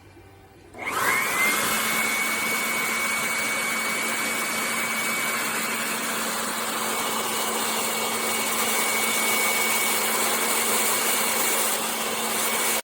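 Morinome MO-B1LH corded electric hand blower switched on about a second in, its motor whine rising quickly to a steady high pitch over a loud, even rush of air, then cutting off suddenly.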